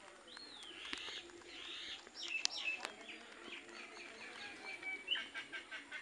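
Alexandrine parakeet calling: a run of chirps and short whistled squawks, some gliding up and down, then a quicker string of short notes in the second half. A few sharp clicks come in between.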